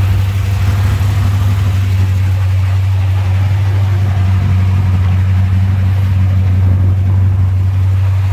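Chevrolet 509-cubic-inch big-block V8 with a solid roller cam idling steadily through dual 3½-inch exhaust and Edelbrock mufflers, in a 1982 Corvette.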